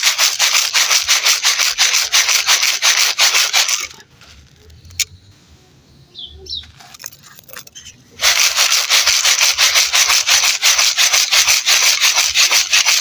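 Dry, gritty crumbly material such as dried red dirt or cement being crumbled and scraped in rapid, even crunchy strokes, several a second. The strokes stop for about four seconds, with one sharp click in the lull, then start again.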